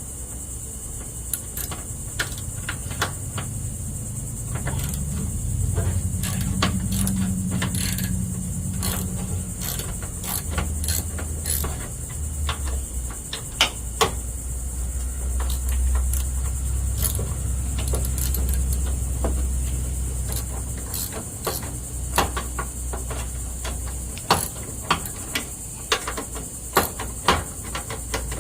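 A ratchet clicks in short, irregular runs as it works the 13 mm bolts holding a riding mower's accelerator pedal. Under it a low vehicle rumble swells through the middle and fades, and a steady high insect drone runs throughout.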